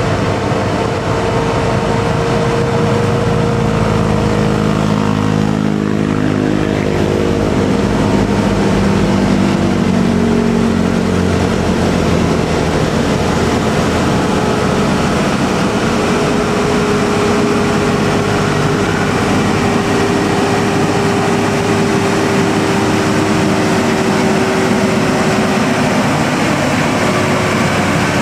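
Diesel engine of a loaded Mitsubishi Fuso cargo truck working hard up a steep grade, running steadily under load with its pitch slowly sagging in the second half.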